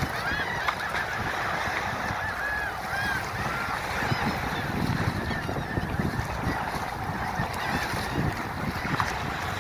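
Birds calling over and over in short rising-and-falling calls, many overlapping and thickest in the first few seconds, over a steady rushing background.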